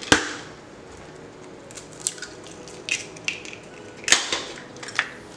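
Eggs being cracked open over a mixing bowl: a sharp crack of shell at the start and another about four seconds in, with lighter clicks of shell being pulled apart between.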